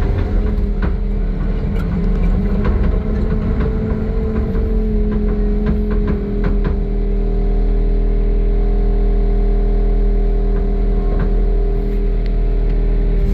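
John Deere 323 skid steer's diesel engine running, with its pitch wavering as the machine is worked. There are several sharp knocks and clanks over the first half before it settles to a steady run.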